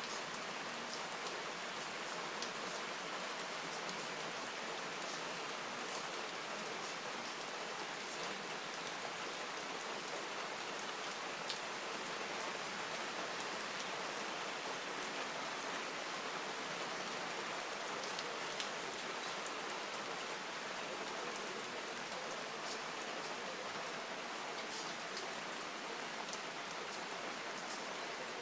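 Steady rain falling on palms, trees and a lawn, an even hiss with scattered sharp ticks of drops striking nearby surfaces.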